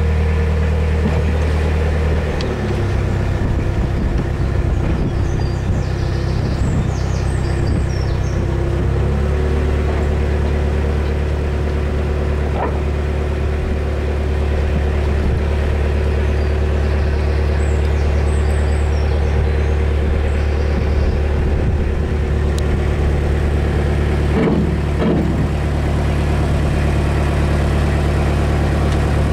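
Narrowboat's inboard diesel engine running steadily at low speed, a low engine note that shifts slightly in pitch a couple of seconds in and again about nine seconds in.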